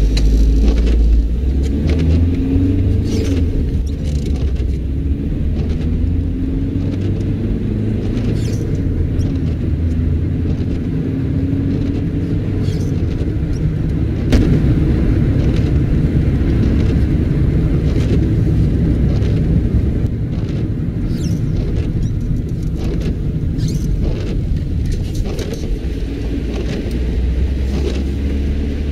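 Car driving, heard from inside the cabin: a steady, heavy low rumble of engine and road, with scattered light clicks and one sharp knock about halfway through.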